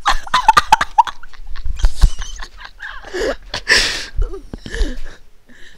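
A person snoring, heard over a Skype voice call: a fast rattling string of clicks in the first second, then several irregular, noisy snoring breaths with falling pitch.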